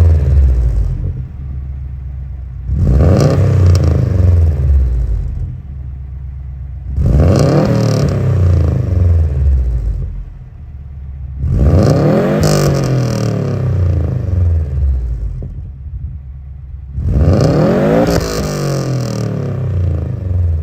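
2005 Subaru WRX STI's turbocharged 2.5-litre flat-four engine revved five times, each rev climbing in pitch and then falling back, with quieter lulls between them.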